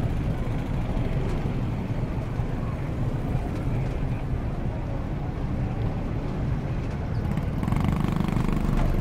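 Street traffic: a steady rumble of cars driving past, with something louder near the end.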